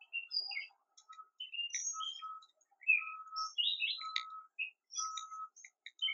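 Several songbirds chirping and calling over one another in quick, varied notes, with a short lower steady note recurring several times.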